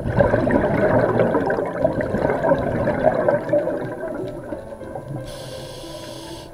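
Scuba diver exhaling through a regulator: a sudden loud burst of bubbling that fades over about four seconds, then a short hiss near the end.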